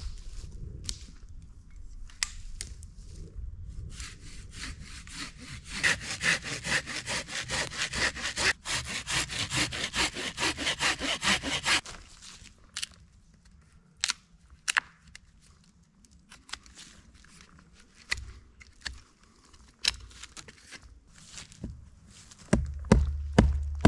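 Wood being cut with a hand saw: a run of quick, even saw strokes lasting about six seconds in the middle. There are scattered clicks and knocks before and after, and a run of regular loud knocks starts near the end.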